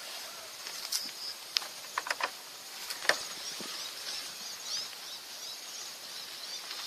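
Quiet outdoor background with a few short sharp clicks in the first three seconds, and faint high chirping through the middle.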